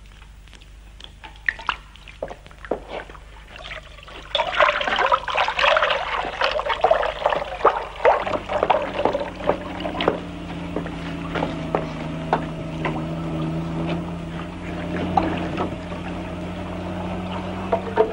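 A German shepherd lapping water at a sink with faint wet clicks, then tap water running and splashing into the basin from about four seconds in. A steady low hum joins it about eight seconds in.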